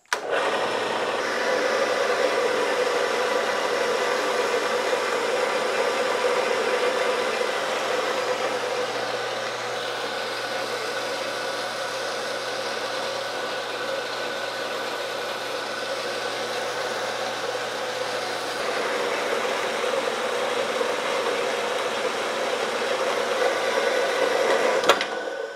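Horizontal metal-cutting bandsaw running, its blade sawing through a steel grade 8 bolt bar with a steady motor hum and cutting noise. It cuts off suddenly near the end.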